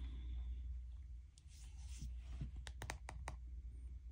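Faint handling of tarot cards on a table: a brief sliding scratch about a second and a half in, then a quick run of four or five light clicks around three seconds in, over a low steady hum.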